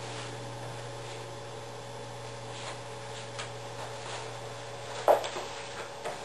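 Quiet room tone with a steady low electrical hum, faint rustling and handling noises of a person shifting in a chair, and one sharp knock about five seconds in.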